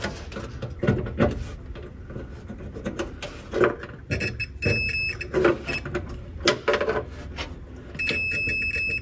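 Digital multimeter's continuity beeper sounding as the probe tip is touched to wire terminals at the fuse box. A broken beep comes about four seconds in and a steady beep in the last second, amid clicks and scrapes of the probe and wires being handled. The tone signals continuity: the wire being traced is connected to the fuse box.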